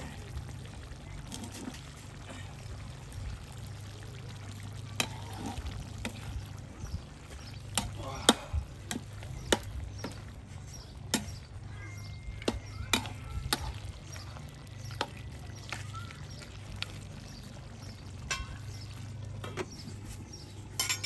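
Cooking sounds: irregular sharp knocks and clinks of a utensil working a cooking pot, over a steady low hum.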